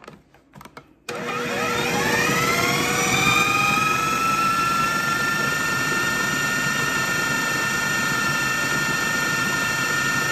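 Food processor motor switching on about a second in, its whine rising quickly to speed and then running steadily as it purees raw beef heart, liver and mushrooms into a paste.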